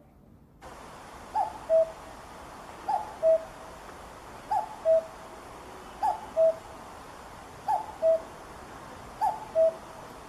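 Common cuckoo calling its two-note "cuck-oo", a higher note dropping to a lower one, six times at an even pace of about one call every second and a half. A steady hiss of background noise sits under the calls.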